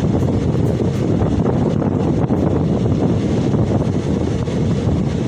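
Loud, steady low rumble of a vehicle, with wind buffeting the microphone.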